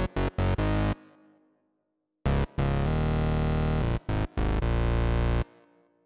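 Spectrasonics Omnisphere synth bass preset 'Counterintelligence' from the Undercurrent library, played as a run of short staccato notes and then a phrase with two longer held notes. The tone is deep and bright with overtones. Each phrase fades out into silence, the first after about a second and a half and the second near the end.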